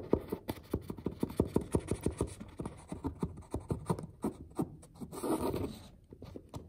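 Dense, irregular scratching and crackling as the plastic nozzle of a superglue bottle is rubbed along a split wallpaper seam and the paper is handled close to the microphone, with a short rustle about five seconds in.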